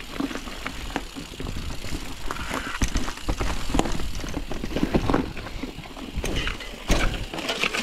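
Mountain bike riding down a rough, rooty trail: tyre noise on dirt with frequent knocks and rattles as the wheels strike roots and bumps.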